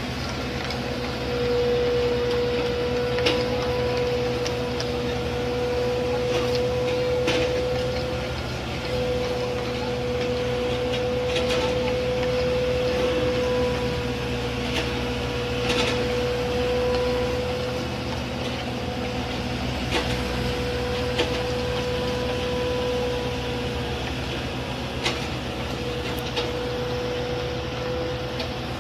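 Machinery running steadily: a constant engine hum under a high, level whine, with scattered clicks and knocks.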